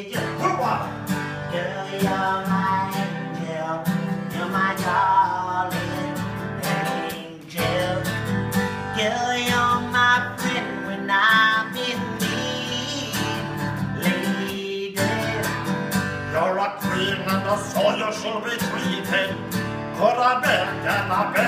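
Acoustic guitar strummed in a steady rhythm, with a man singing over it in a live acoustic performance. The playing breaks off briefly twice.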